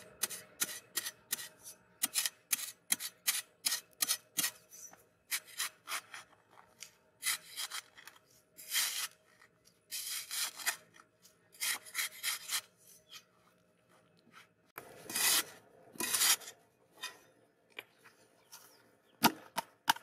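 Long-handled metal spade scraping and chopping into dry sandy soil: a quick series of short gritty strokes, about two a second, with a few longer scrapes and a sharp knock near the end.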